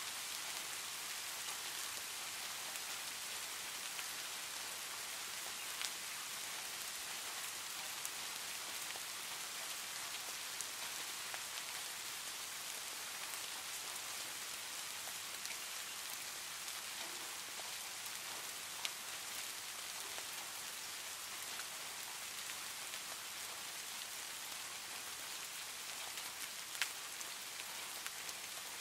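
Steady rain ambience, an even hiss of falling rain. A few short sharp clicks stand out from it, three in all, the loudest near the end.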